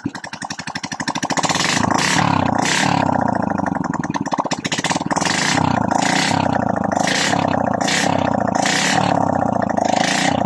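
Honda RS 125 Fi single-cylinder engine running with its muffler off, just after a cylinder rebore and a new oversize piston. The throttle is blipped again and again, so the engine note rises and falls, and it gets louder about a second and a half in.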